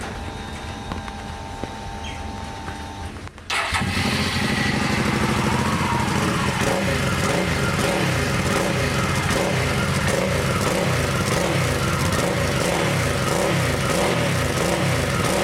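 Hyosung Aquila Pro V-twin motorcycle engine, running through an aftermarket exhaust packed with a steel-wool dish scrubber behind the dB killer. The engine comes in abruptly about three and a half seconds in and then idles steadily, its exhaust note damped by the scrubber.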